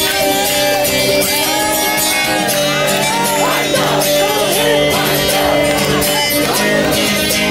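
Music with steady held notes, with voices singing and shouting over it.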